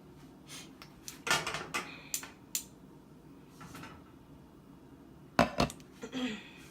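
Serving utensils and dishes clinking and clattering as food is served onto a plate: a run of quick clinks and scrapes in the first few seconds, then two sharp knocks about five and a half seconds in, followed by a short scrape.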